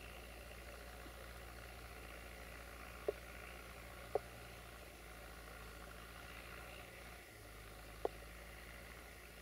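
UTB tractor's diesel engine running steadily at a distance while ploughing, a faint low hum. Three short, sharp sounds stand out about three, four and eight seconds in.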